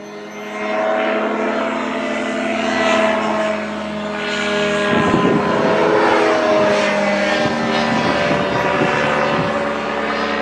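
Ultralight trike's Rotax 532 two-stroke twin engine and propeller droning as it flies overhead. The pitch wavers slightly, and it grows louder about half a second in.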